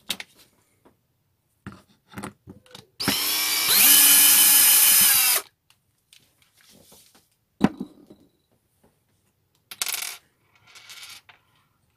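A small electric power tool's motor runs for about two and a half seconds as a steady whine that steps up in speed partway through, then cuts off. Light clicks and the handling of small parts come around it, with a sharp knock shortly after.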